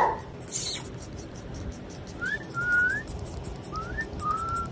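A person whistling softly: two short phrases, each a quick rising note followed by a longer, nearly level note. A brief rustle about half a second in.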